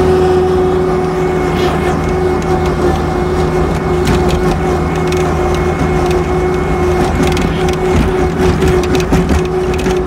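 Skid steer's engine running hard with a steady whine, heard from inside the cab as the machine spins over packed snow. Rattles and knocks come more often in the second half.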